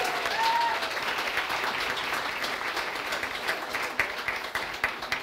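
An audience applauding, with a voice calling out briefly in the first second; the clapping slowly fades toward the end.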